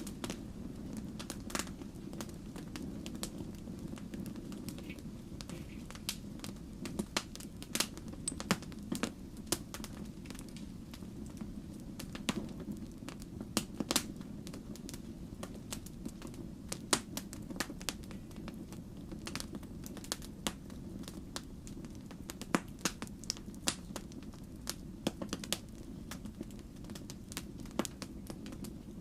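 Wood fire crackling, with sharp irregular pops and snaps over a steady low rumble.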